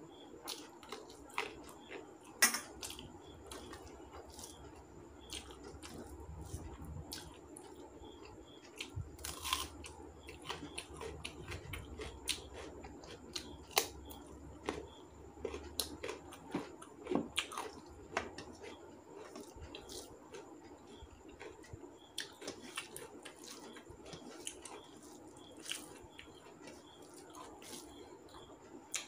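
A person eating rice and curry by hand: chewing and wet mouth smacks, squishes of rice being mixed with the fingers on a steel plate, and many short sharp clicks, the loudest about two seconds in. Crunching of raw carrot is heard in the middle.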